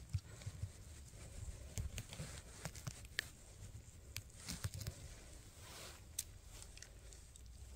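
Faint, irregular snaps and rustles of leaf litter and twigs on a forest floor, with no steady rhythm.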